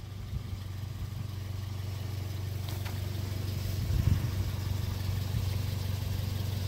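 Small car's engine idling steadily, a low even hum, with a brief low knock about four seconds in.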